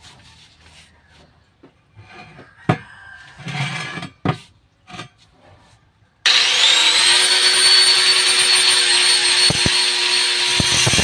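Scattered knocks and clicks of metal parts being handled, then about six seconds in a power tool such as an angle grinder is switched on: it spins up with a quickly rising whine and settles into a loud, steady high whine.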